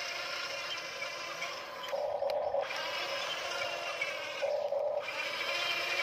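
Huina radio-controlled toy excavator's small electric gear motors whirring as the machine works its arm. Twice the sound briefly drops to a lower whine for about half a second.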